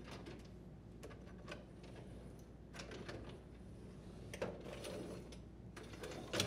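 Wire dishwasher upper rack rattling and clicking as it is handled and its sliders are set onto the slide rails, with a sharper knock about four and a half seconds in and the loudest one near the end.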